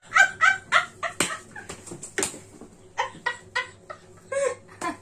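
A girl and a woman laughing hard together in quick ha-ha-ha bursts, with two sharp smacks about a second apart partway through.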